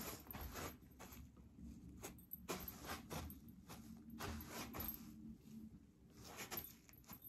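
Faint, irregular scuffs and rustles of footsteps as block-heeled rubber jelly slides turn and step on artificial turf.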